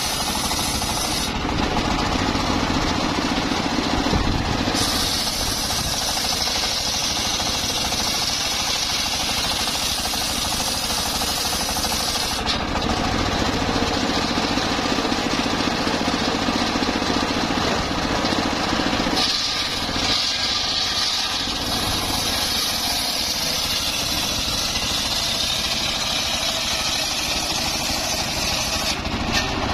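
Engine-driven homemade circular sawmill running under load as its blade rips a mahogany log. The loud, steady machine noise shifts several times as the hiss of cutting comes and goes.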